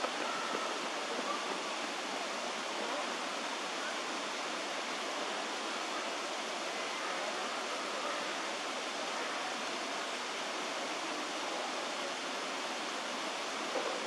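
Steady rush of running water, an even hiss with no breaks or distinct events.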